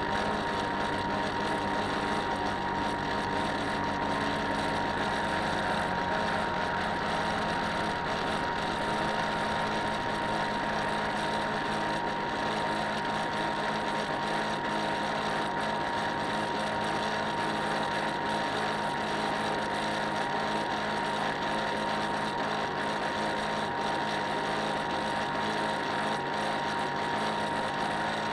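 A model boat's motor running steadily, a continuous mechanical hum with a high, constant whine.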